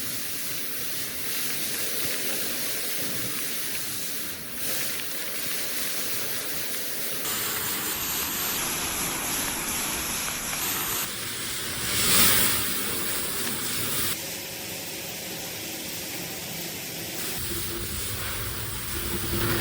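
Steady hissing noise that changes character abruptly several times, with a brief louder swell about twelve seconds in.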